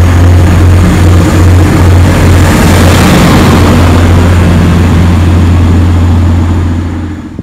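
TransPennine Express Class 185 diesel multiple unit running past close by along the platform: a loud, steady low diesel engine drone with rushing wheel and air noise. The noise drops away sharply near the end as the last coach goes by.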